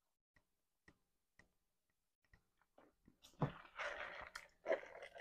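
Soft mouth clicks from chewing, about two a second, then from about three and a half seconds a louder jumble of ice shifting and rattling in a fast-food drink cup.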